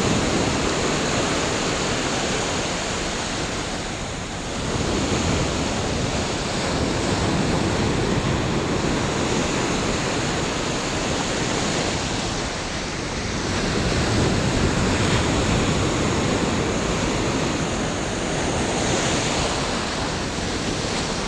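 Ocean surf: small waves breaking and foamy water washing up over the sand close by. It swells and eases in surges, with brief lulls about four and twelve seconds in.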